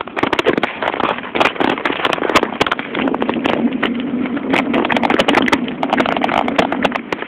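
Fixed-gear bicycle rattling and clattering over a rough dirt trail, tyres crunching on loose dirt and twigs, with rapid sharp knocks throughout. A steady low hum joins underneath about three seconds in.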